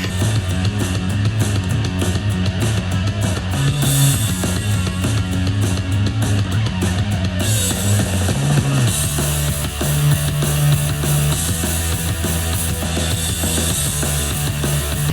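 Rock music with a drum kit, guitar and a prominent bass line, played back through an Amazon Echo smart speaker.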